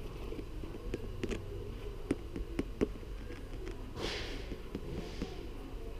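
A sneaker being handled: scattered light clicks and taps as it is turned over in the hands, and a brief rustle about four seconds in as the upper is squeezed. A steady low hum runs underneath.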